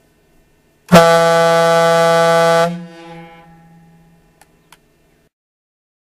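Ship's horn sounding one steady, low blast of about two seconds, starting about a second in. It cuts off and trails away in a long echo, followed by two faint clicks.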